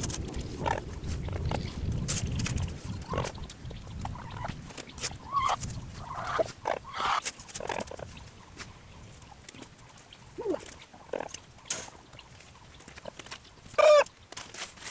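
Backyard chickens clucking: many short, scattered calls, with one louder call near the end.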